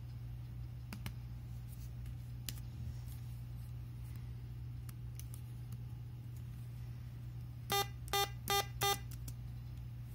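Four short electronic beeps in quick succession, about a third of a second apart, from an HP laptop's speakers: the error bell set off by pressing Ctrl+Shift+E. A few faint laptop key clicks come before them, over a steady low hum.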